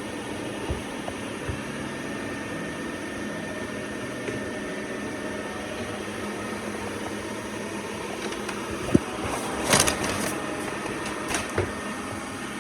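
Robot vacuum-mop running with a steady motor and fan hum, a faint thin whine over it. A few short knocks and a brief rustling burst come about nine to ten seconds in, with another shorter one soon after.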